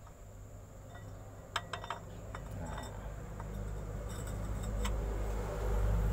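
Light metallic clinks of steel gearbox parts being handled, a cluster about a second and a half in and a few more around four to five seconds, over a low rumble that grows louder toward the end.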